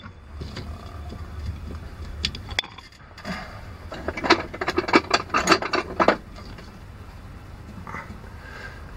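A quick run of sharp plastic clicks and rattles from hands working at a board of miniature circuit breakers, about halfway through, with a low rumble in the first few seconds.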